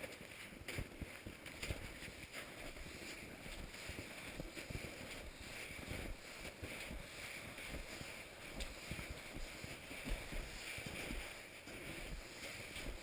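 Skis shuffling and crunching through snow with ski poles planting, an uneven run of soft steps and thumps, over a steady wind rumble on the microphone.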